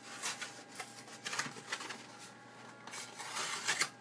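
Cardboard food box being pulled and torn open by hand: several short bursts of rustling and scraping, the loudest near the end.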